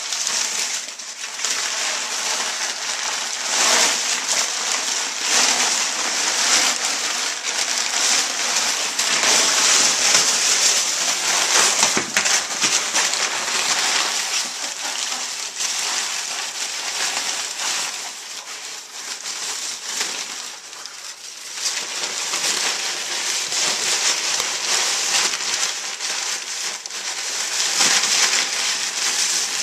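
Brown packing paper crinkling and rustling continuously as a pig roots through it and drags it into its nest, easing off briefly about twenty seconds in.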